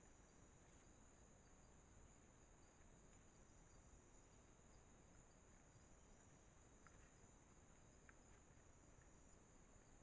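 Faint night insect chorus of crickets: a steady high trill with a second, pulsing trill just below it, and a couple of faint clicks in the second half.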